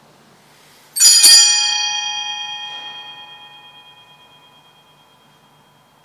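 Altar bells rung at the elevation of the consecrated host: a short shake of a few strikes about a second in, then several bright ringing tones fading away over about four seconds.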